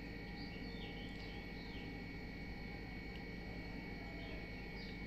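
Quiet background: a steady low hum with a faint high whine, and scattered short high chirps of small birds.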